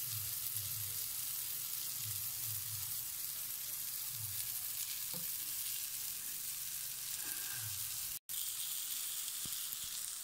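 Hot dogs sizzling on a round stovetop grill pan over a gas burner: a steady frying hiss that breaks off for a moment about eight seconds in.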